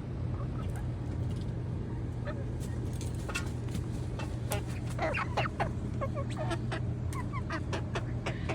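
Backyard chickens clucking and giving short calls, more of them from about halfway through, over a steady low hum.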